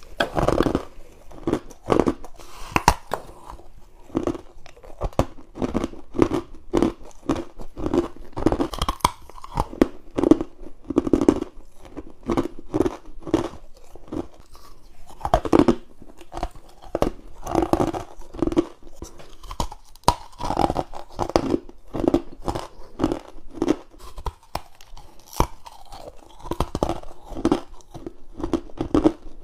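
Close-up biting and chewing of frozen humidifier frost and ice cubes: a steady run of crisp crunches, several a second, with louder bites now and then.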